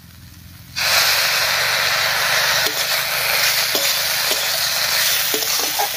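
Loud sizzling that starts suddenly about a second in, as wet cumin and ginger paste hits the hot oil in a wok of fried banana stem. It goes on steadily while the mixture is stirred, with a few light clicks of the spatula.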